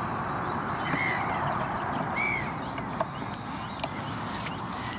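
Outdoor ambience of birds calling over a steady background hiss, with two short rising-and-falling chirps in the first couple of seconds and a few faint clicks.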